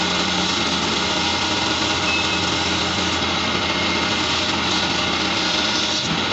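Wood lathe running steadily, spinning a turned wooden spindle while it is sanded by hand, with a constant motor hum.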